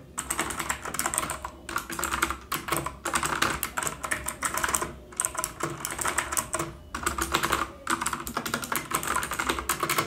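Fast typing on a Cosmic Byte CB-GK-12 mechanical keyboard with clicky blue switches: a dense clatter of key clicks, broken by a couple of short pauses.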